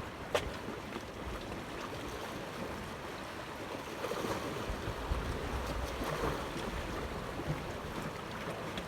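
Wind on the microphone and the wash of water, with low rumbling gusts and one sharp click just after the start.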